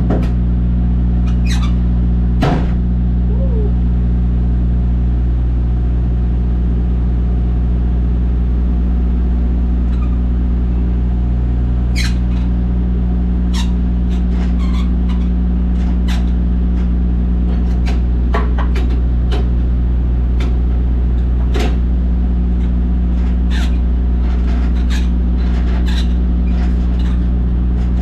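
Semi-truck diesel engine idling steadily, with scattered light clicks and ticks over it.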